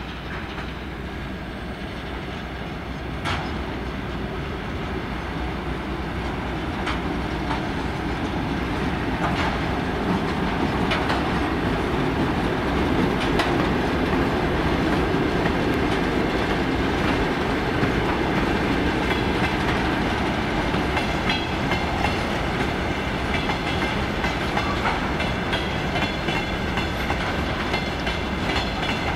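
Freight train hauled by a VL10U electric locomotive rolling past, a steady rumble of wagon wheels on the rails that grows louder over the first dozen seconds, with a few sharp clicks as the wheels cross rail joints.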